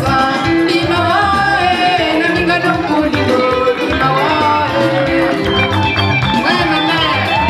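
A woman singing into a microphone over dance music with a steady beat.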